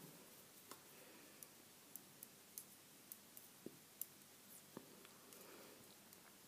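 Faint, irregular clicks of knitting needles tapping together as stitches are knitted in 2x2 rib, about one or two a second.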